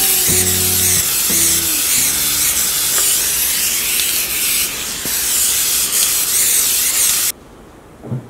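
Aerosol spray paint can hissing steadily as it sprays, stopping abruptly about seven seconds in.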